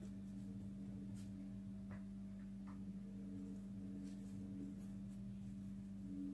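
Faint soft taps and rubbing from hands rolling small balls of brioche dough on a floured worktop, a few scattered ticks, over a steady low hum.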